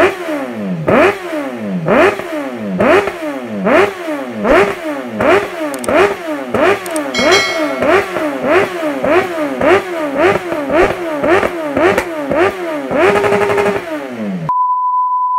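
Motorcycle engine blipped over and over through a short end-can silencer, each rev rising sharply and dying away. The blips speed up from about one a second to about two a second before a briefly held rev. A steady high beep replaces it in the last second.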